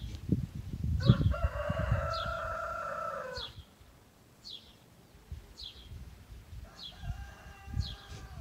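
A rooster crowing: one long call starting about a second in, and a fainter second crow near the end. A small bird chirps over it in short falling notes, over and over.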